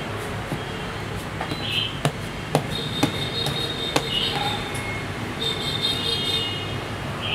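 Thick purple slime being squeezed, kneaded and poked by hand, giving sharp clicking pops every second or so over a steady low background hum.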